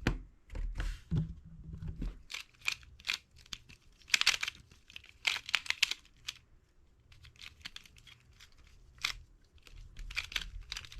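MoYu Weilong Pyraminx being turned fast in a speedsolve: quick bursts of plastic clicking and clacking as the layers and tips snap round, with a short lull partway through.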